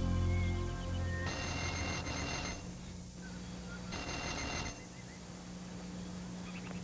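A doorbell ringing twice: a ring of just over a second, then a shorter one about three seconds later. Background music trails off before the first ring.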